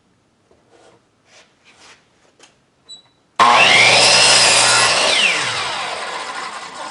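Small knocks of handling, then a 10-inch chop saw switched on about three and a half seconds in, running loud as it cuts into a 2x12 board. After about a second and a half the motor is released and the blade spins down with a falling whine.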